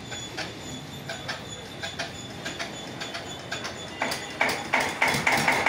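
A 24 HP water-cooled twin-cylinder diesel engine on a 15 kVA single-phase generator, cranked by hand with a regular clicking that quickens, then catching about four seconds in and running steadily with a fast beat.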